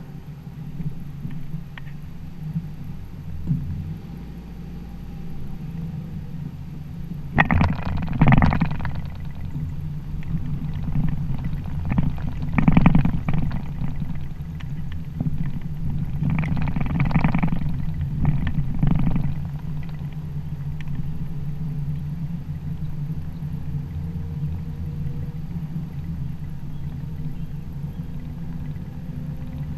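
A vehicle driving: a steady low rumble of engine and tyres, with a few louder rushes of noise, the first about a quarter of the way in and the rest spread over the next ten seconds.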